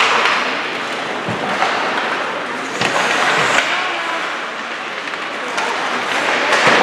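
Ice hockey in play: skate blades scraping and carving the ice, with a few sharp knocks.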